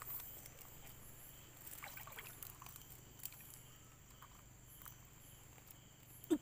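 Faint sounds of shallow water stirred by a gloved hand groping about in it, with a few small clicks. A short, sharp sound near the end is the loudest thing.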